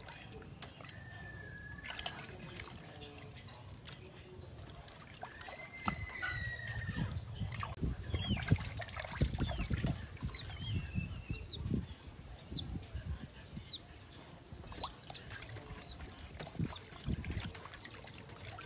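Water sloshing and splashing in a steel basin as raw pork pieces are scrubbed by hand, with irregular splashes and small knocks of meat against the metal. Birds whistle and chirp now and then in the background.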